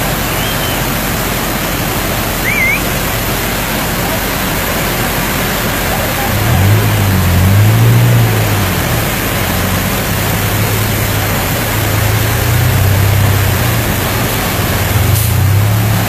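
Loud, steady rush of a flood-swollen, muddy waterfall crashing down onto a roadway. From about six seconds in, a vehicle engine's low hum rises and falls underneath it.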